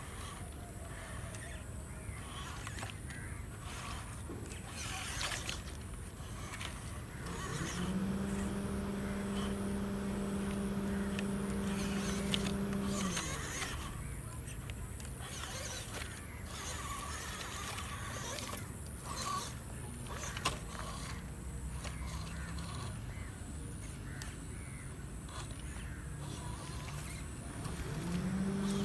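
Electric motor and gearbox of an MN99S RC crawler whining at a steady pitch for about five seconds, rising in as it pulls away and falling off as it stops, then starting again near the end. Between runs, a low outdoor background with scattered small clicks.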